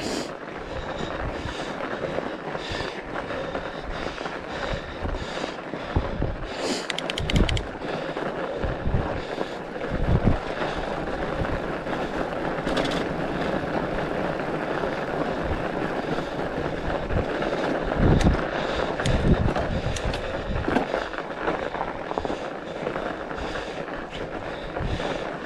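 Fat bike being ridden over a packed-snow trail: a steady rolling rush from the wide tyres and drivetrain, with low, irregular thumps of wind buffeting the microphone and a quick run of clicks about seven seconds in.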